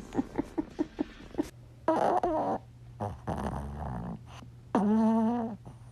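A pet's vocal sounds: a quick, rhythmic run of short pulses, then a few longer calls, the last a held pitched tone.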